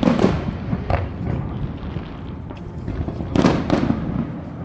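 Fireworks going off: a sharp bang at the start, another about a second in, and two more in quick succession past three seconds in.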